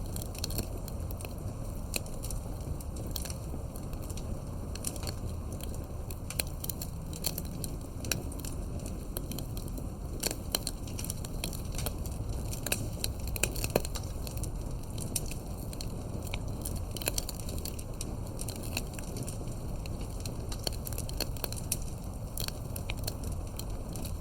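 Campfire crackling, with frequent sharp pops and snaps over a steady low rumble.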